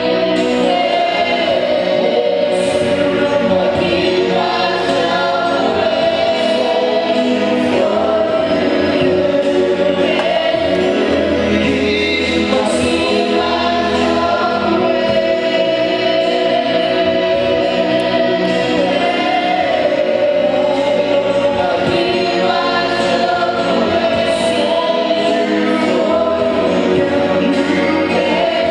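Choir singing a gospel worship song with accompanying music, steady and loud.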